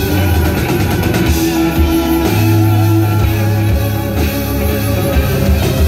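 Live band playing loud rock music, electric guitar over a heavy bass line, with a long held low bass note about two seconds in, heard from within the audience.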